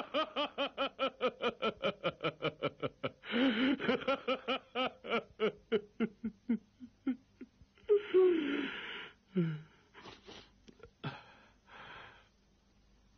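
A person sobbing in quick, gasping catches of breath, about five a second, that slow down. About eight seconds in comes a louder drawn-out cry falling in pitch, which trails off into a few broken breaths.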